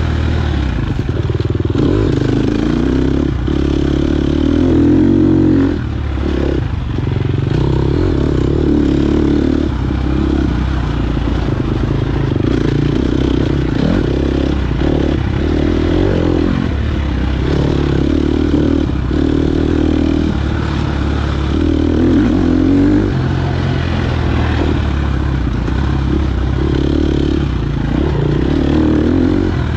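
KTM 250 XC-F four-stroke single-cylinder dirt bike engine under race load, repeatedly revving up and dropping back every couple of seconds as the throttle is worked, with a few short knocks in between.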